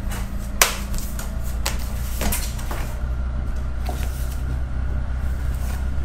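Papers, folders and a plastic storage box being handled: a few short rustles and taps, the sharpest about half a second in, over a steady low hum.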